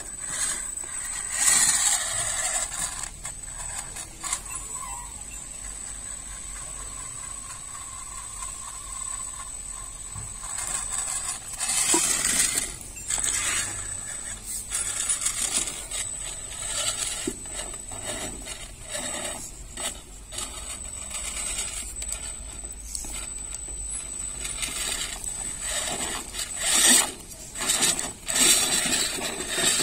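3D-printed RC rock crawler with a brushless motor and 3D-printed gearbox driving and climbing. The drivetrain whirs with a steady high whine, and the wheels and chassis clatter and scrape over plastic mesh and pots in irregular louder spurts.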